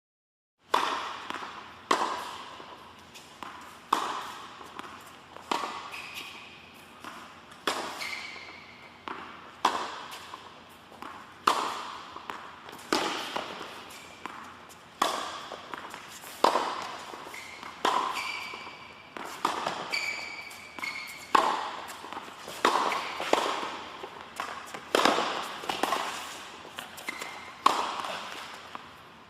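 Tennis ball being hit back and forth in a rally: a sharp pop from a racket strike or court bounce about every one to two seconds, with a few short high squeaks between hits. The hits start about a second in.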